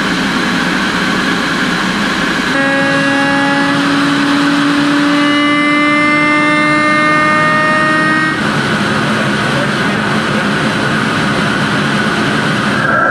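Electrodynamic shaker table vibrating a CubeSat in its deployer during a vibration test: a loud, steady, noisy buzz, with several tones gliding slowly upward in pitch from about two and a half to eight seconds in.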